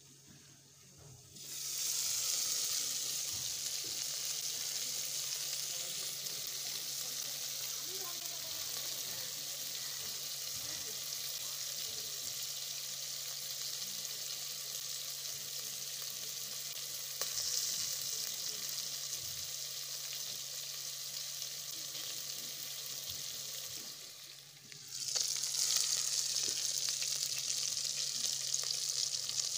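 Fish steaks frying in oil in an electric rice cooker's inner pot: a steady sizzle that starts about a second and a half in, dips briefly near the end, then comes back louder.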